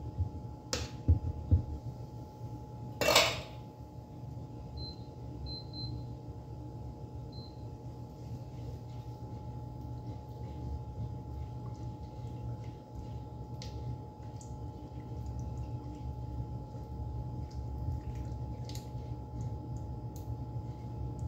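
Wooden spatula stirring and scraping food in a stainless steel pan, with light knocks against the metal and one louder clatter about three seconds in, over a steady low hum.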